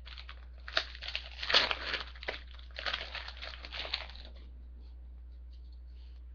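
A trading-card pack wrapper being torn open and crinkled by hand, in a run of rustling bursts that stops about four seconds in.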